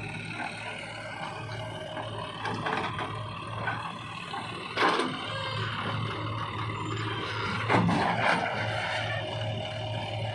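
Diesel engine of a JCB 3DX backhoe loader running steadily, with two loud thumps about five and eight seconds in.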